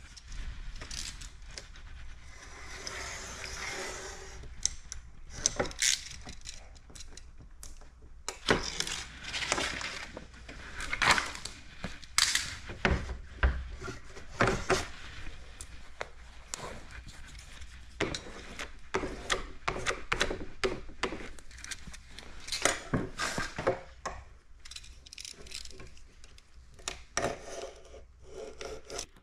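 Hand tools and plastic film handled on a glass cutting board: irregular clicks, taps and knocks, with stretches of scraping and rustling as the film is lined up under a spirit level and cut along a straightedge with a utility knife.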